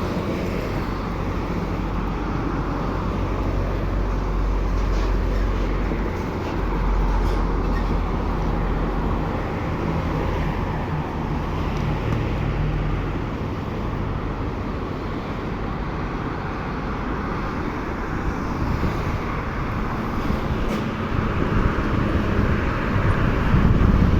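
Whoosh high-speed electric trains running on the line, a steady rush and rumble with a low hum that grows louder near the end, with wind on the microphone.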